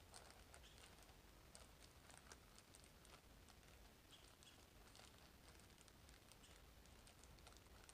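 Near silence, with faint scattered crinkles and light clicks of a food bag being handled and mixed.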